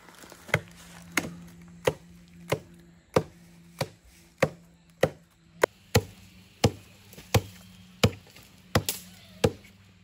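A large knife chopping into the base of a bamboo shoot: a steady run of sharp blows, roughly one every two-thirds of a second, about fifteen in all.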